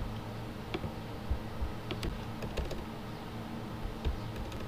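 A handful of irregular clicks of computer keyboard keys being pressed, including arrow keys, over a low steady hum.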